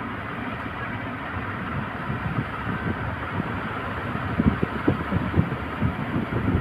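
Steady roar of heavy sea surf, with a run of low thumps from about four seconds in.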